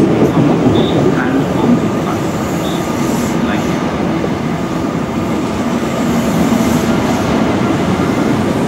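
Greater Anglia passenger coaches rolling past on the track, giving a steady rumble of wheels on rails.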